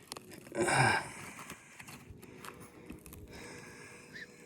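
A short breathy vocal sound from a person, like a sharp exhale or snort, under a second in, followed by faint scattered clicks and handling noise.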